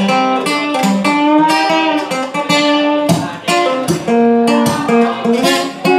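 Live acoustic guitar strummed steadily under a sung melody with long held notes, played through a small PA.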